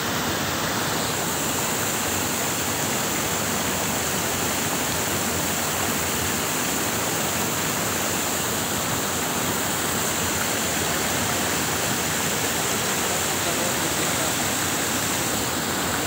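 Steady rush of water from Dudhsagar Falls and the stream running over the rocks at its foot.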